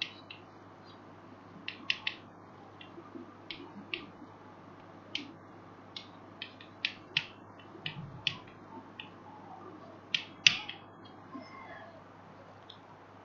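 Chalk on a blackboard: a run of short, sharp taps and scratches at irregular intervals as small symbols are drawn, the loudest cluster about ten seconds in.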